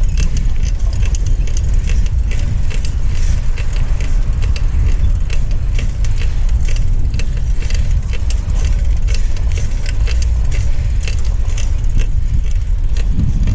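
A loaded scrap cart rattling and clanking over the road while being ridden, with many irregular metallic clicks over a steady low rumble.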